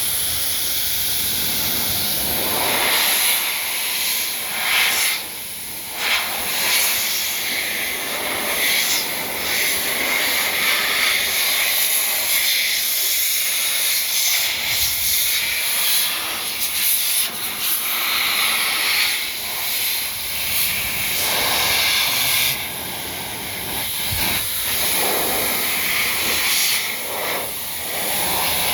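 Adam's Air Cannon electric car-dryer blower pushing out a loud, steady rush of hissing air. The hiss swells and fades as the air stream shifts, with a brief drop about five seconds in.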